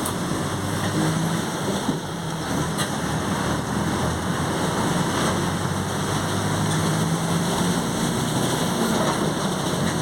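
Mercedes-Benz OF 1722M bus under way, steady engine and road noise from inside, with the differential growling as a low hum that strengthens and fades.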